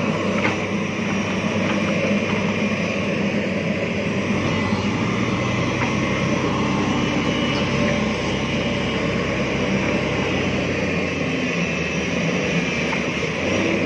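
Diesel engine of an earthmoving machine running steadily. Its lowest note grows deeper and heavier from about four seconds in until about eleven seconds in.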